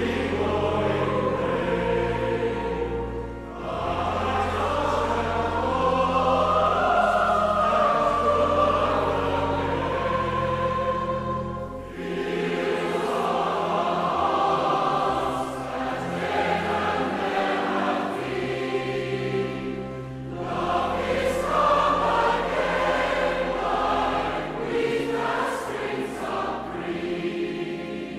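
Choir singing sacred choral music over sustained low accompanying notes, in long phrases with brief dips between them.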